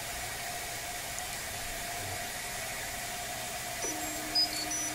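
MakerBot Replicator 2 desktop 3D printer humming steadily with its fan running while the extruder heats. About four seconds in, a steady motor whine starts, followed by a short high electronic beep: the extruder has reached temperature and the unload begins.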